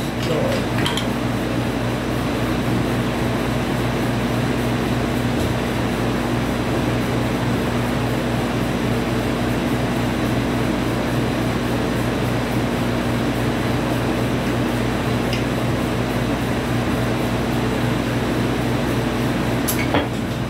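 Portable air conditioner running, a steady hum with fan noise. A faint click about a second in and a sharper one near the end.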